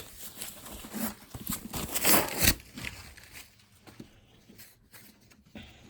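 Shipping packaging being handled and pulled at to open it, rustling and crinkling, with a louder burst of rustling about two seconds in and faint scattered rustles and clicks after.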